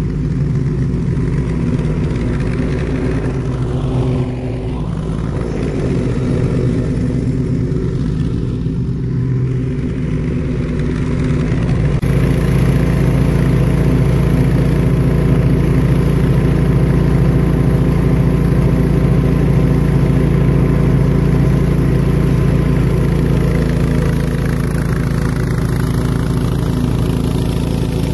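Allis-Chalmers 712H garden tractor engine running steadily.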